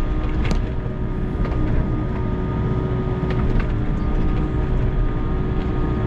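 Volvo EC60E mini excavator's diesel engine and hydraulics running steadily under digging load. A few sharp knocks come as the bucket works through stony soil.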